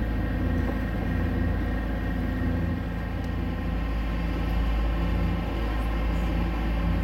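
Sailboat's inboard engine droning steadily while under way, several steady hum tones over a deep rumble.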